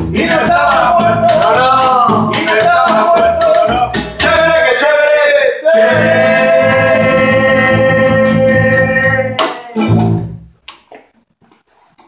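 Live rumba band: acoustic guitar strummed with the rumba 'ventilador' technique, upright double bass and a man singing. The singer holds one long note, the band hits a last chord about ten seconds in, and the music stops.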